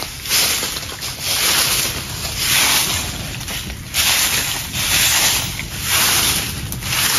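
A long-handled broom sweeping leaves and dirt across bare ground: repeated swishing strokes, about one a second.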